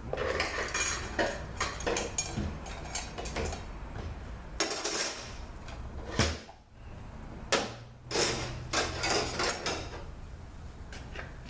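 Metal parts of a 200-4R automatic transmission clinking and clattering as the overdrive drum and its clutch pack are worked loose and lifted out. Two sharper metal knocks come about six and seven and a half seconds in.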